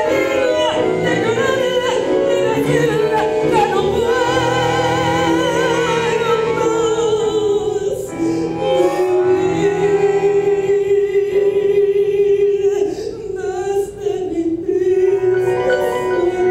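A woman singing live into a microphone over instrumental accompaniment, holding a long note with a wide vibrato a few seconds in.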